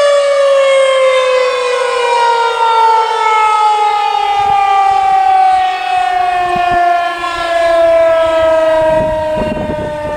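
Federal Signal 2001-130 rotating outdoor warning siren winding down, its single steady tone falling slowly in pitch. The loudness swells and eases every few seconds as the horn turns toward and away from the listener.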